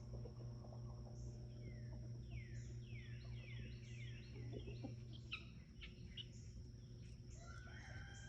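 Guinea fowl chirping: a quick series of falling chirps, several a second, in the middle, then a few sharper calls. A steady high whine and a low hum run underneath.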